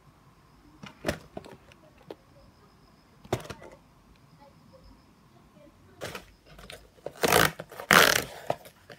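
A few sharp clicks and knocks, then two louder rustling noises about seven and eight seconds in.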